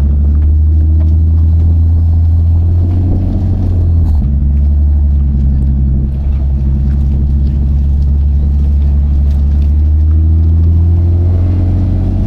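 Car engine running at low revs with a deep, steady drone. There is a brief change in pitch about four seconds in, and the revs climb near the end.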